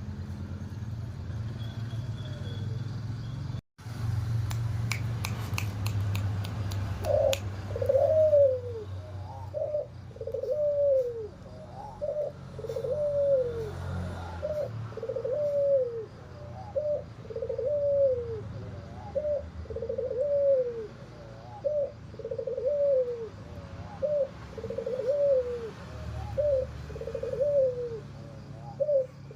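Albino puter (ringneck dove) cooing over and over, about one hoarse arched coo a second, starting about a quarter of the way in. Before the cooing begins there is a low hum and a short run of clicks.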